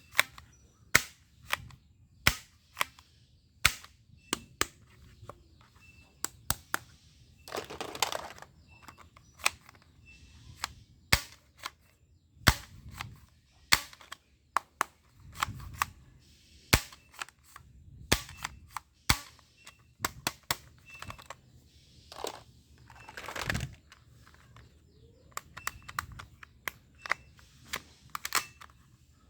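Toy airsoft pistol firing repeatedly: sharp snaps about once a second at irregular spacing. A couple of longer rustling noises come in between, about a quarter of the way in and again about three quarters of the way in.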